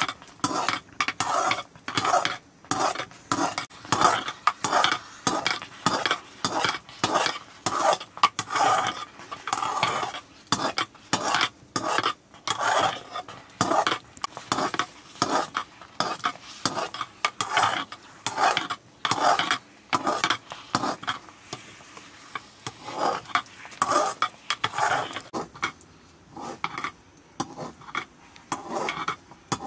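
Flat metal spatula stirring and scraping thick maize-flour porridge against the sides of a metal pot, in quick repeated strokes about twice a second.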